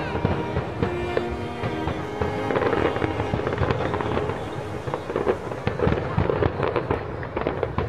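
Fireworks display going off in rapid succession: a dense run of crackling pops and bangs.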